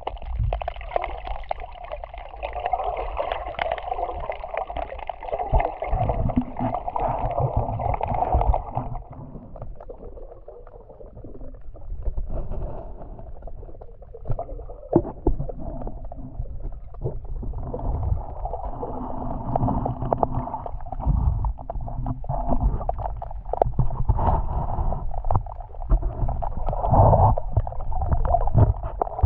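Muffled water sloshing and gurgling around an underwater camera in the sea, with a low rumble and scattered knocks. It quietens for a while about nine seconds in and picks up again.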